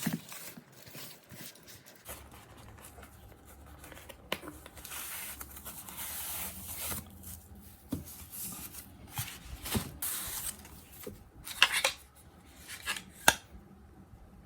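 Packaging being handled and unwrapped by hand: on-and-off rustling and rubbing with scattered sharp clicks, two of them louder near the end.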